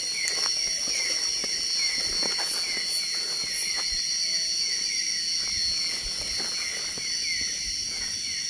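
Night-time tropical forest insect chorus: a steady high-pitched buzzing drone with a short chirp repeating about twice a second, over faint scattered clicks and rustles.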